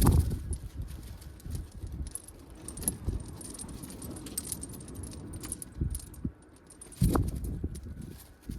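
Wind gusting against the microphone in uneven rumbling blasts, strongest at the start and about seven seconds in, with scattered clicks and knocks throughout.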